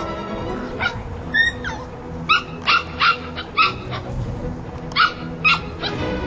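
Poodle puppies yapping while they play-chase: about nine short, high-pitched yips and barks at irregular intervals.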